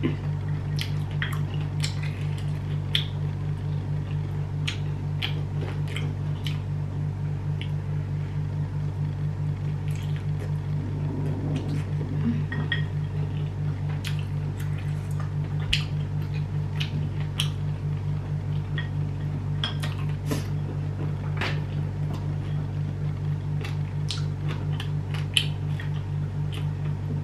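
Eating by hand: scattered soft clicks and squishes of fingers picking at saucy beef ribs on a plate, with chewing. A steady low hum runs underneath.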